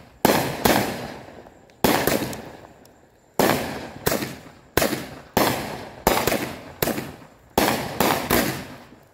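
Consumer aerial fireworks bursting in quick succession: about a dozen sharp bangs, a fraction of a second to a second apart, each dying away over about half a second.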